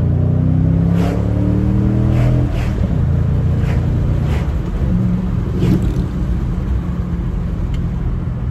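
2009 Mustang GT's 4.6-litre three-valve V8 through a Pypes Violator axle-back exhaust, heard from inside the cabin, pulling under acceleration through the manual gears. The engine note climbs, drops at an upshift about two and a half seconds in, then runs steadier.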